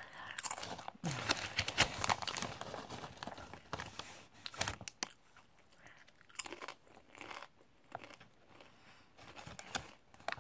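Crunching and chewing of Popworks popped corn-and-rice crisps being bitten and eaten. The crunches come thickly in the first few seconds, then more spaced out.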